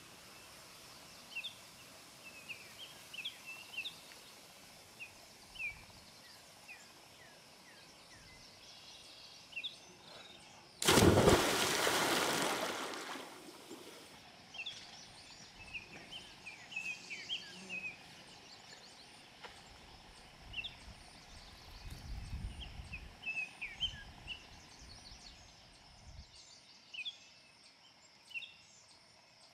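A person jumping feet-first off a shoreline rock into a lake: one loud splash partway through that dies away over about two seconds. Small birds chirp in short calls throughout.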